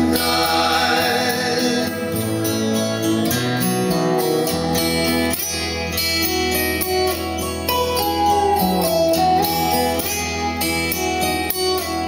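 A country song played back through a pair of Triangle Titus 202 bookshelf speakers, picked up in the room: an instrumental stretch between sung lines, with guitar over a steady bass line.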